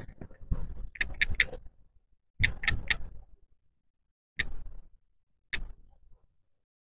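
Small sharp clicks and taps from handling a makeup brush and a jar of loose face powder: three quick ones about a second in, three more a moment later, then two single taps.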